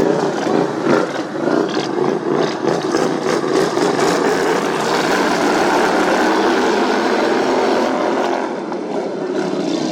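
Racing lawn mower engines running loud at speed, with a dense rattle of sharp cracks in the first few seconds; the sound eases off slightly near the end.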